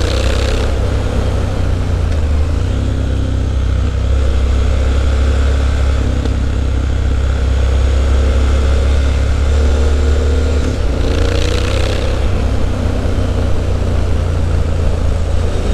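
Triumph Street Scrambler's 900 cc parallel-twin engine running through a Zard aftermarket exhaust while riding at fairly steady revs, with a deep, even exhaust note.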